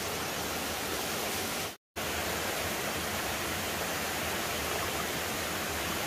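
Rocky mountain stream running over stones and small rapids: a steady, even rush of water, broken by a brief dropout about two seconds in.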